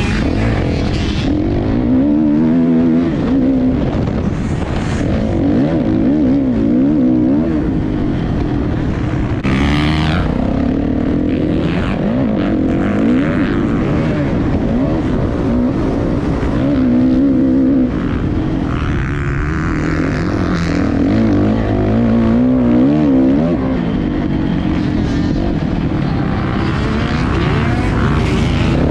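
Motocross dirt bike engine heard from on board, revving up and falling back again and again as the rider accelerates, shifts and slows through the corners of the track. A brief rushing burst of noise stands out about ten seconds in.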